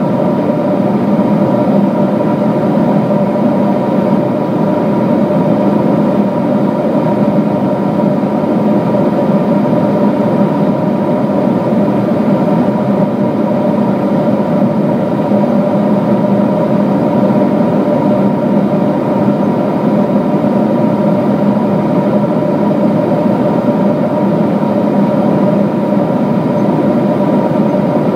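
Steady cabin noise of a Boeing 777-200 in cruise, heard from inside near the wing: an even rush of airflow and engine hum with a few held tones.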